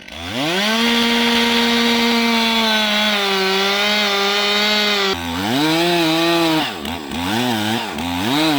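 Two-stroke chainsaw revved to full throttle and cutting into wood for about five seconds, its pitch sagging slightly under load, while squaring up the back corner of a felling notch to clean up a bypass. It then drops off and is revved up and down about once a second.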